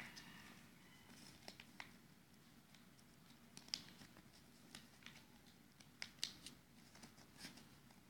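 Faint, scattered crackles and rustles of a sheet of origami paper being folded and creased by hand, over a low steady hum.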